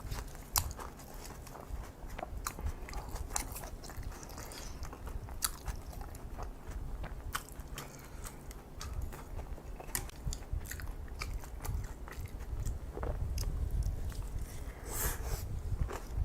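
Close-miked chewing of kimchi fried rice and kimchi: wet mouth sounds with irregular sharp clicks and crunches.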